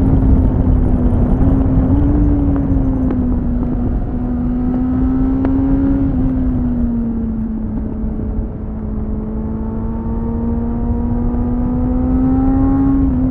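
2001 Suzuki GSF600 Bandit's inline-four engine through a BOS slip-on exhaust, running steadily on the move. Its pitch sags about six seconds in, then slowly climbs again until just before the end. Wind rush on the onboard microphone lies underneath.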